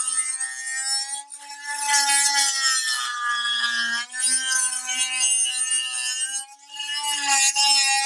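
Fein first-generation Multimaster oscillating multi-tool with an aftermarket blade cutting into a wooden block: a steady buzz with the rasp of the teeth in the wood. It dips briefly about a second, four seconds and six and a half seconds in, and the pitch sags as the blade loads up.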